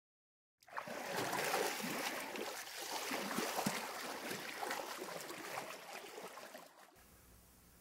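Rushing, burbling water like a stream, starting about half a second in and fading out near the end.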